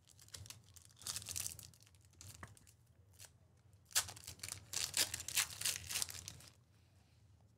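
A Select Basketball card pack's wrapper being torn open and crinkled, in a short bout about a second in and a longer, louder one from about four seconds in.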